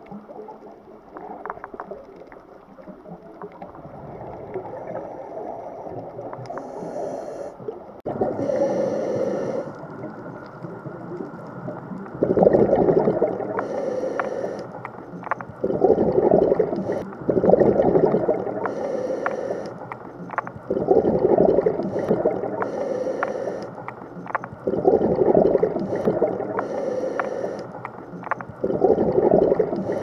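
Scuba diver breathing through a regulator underwater: a hiss on the inhale and bursts of exhaled bubbles gurgling every few seconds. The bubble bursts get louder partway through.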